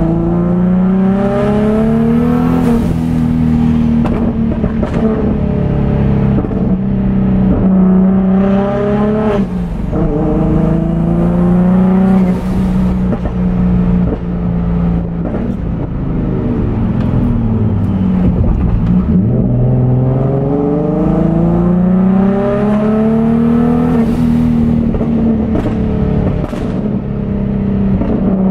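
Nissan 350Z's boosted V6 engine pulling hard, heard from inside the cabin. Its revs climb and drop back at each gear change, ease off about midway, then build again through the gears.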